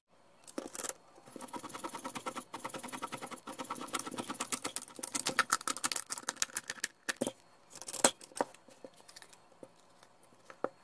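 Oil filter cutter's wheel scoring through the steel can of a FRAM oil filter as the filter is turned against it: a fast, steady run of scraping clicks for several seconds, pausing briefly twice. A few separate knocks follow as the cut can is pulled apart.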